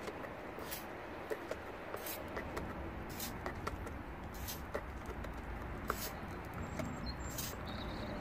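Small wire brush scrubbing a grimy bonnet latch mechanism, cleaning off old grease and dirt that had made it stiff: short scratchy strokes about every second and a half, with small clicks in between.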